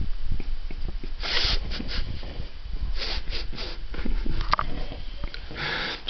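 A person's noisy breathing: three breathy bursts about two seconds apart, with small clicks in between.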